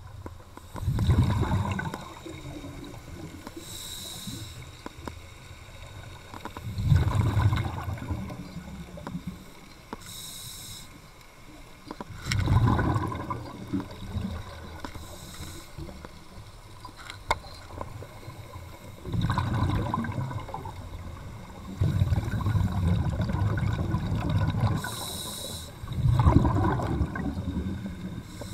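Scuba diver breathing through a regulator underwater: a short hiss on each inhale and a low bubbling rumble on each exhale, the cycle repeating about every six seconds.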